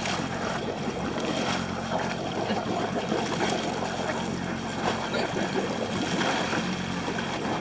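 A boat's engine running steadily, with water sloshing against the hull.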